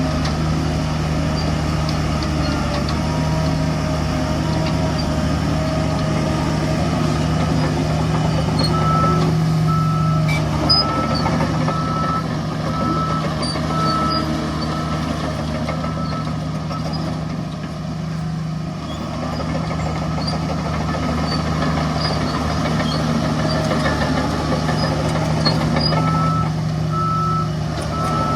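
Heavy construction machinery running with a steady diesel engine hum, while a reversing alarm beeps at an even pace, once about a third of the way in for several seconds and again near the end.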